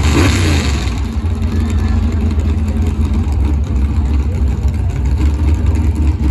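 A motor vehicle engine running steadily at a low pitch, with a short louder burst, like a rev, right at the start.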